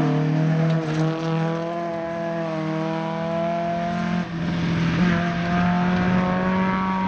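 Volvo 142 rally car's four-cylinder engine held at high revs on a gravel stage, with loose gravel hissing under the tyres. The engine note breaks off abruptly about four seconds in, then comes back and climbs slightly.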